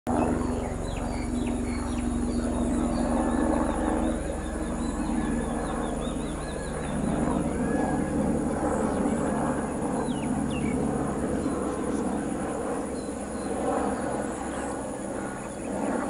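Outdoor rural ambience: a steady low rumble with a high hiss, and scattered short, high bird chirps, most of them in the first half.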